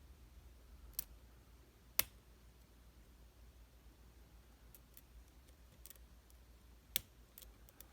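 Lock pick and tension wrench working the pin stack of a Euro profile padlock, with sharp metallic clicks about one, two and seven seconds in (the second loudest) and a few fainter ticks in between.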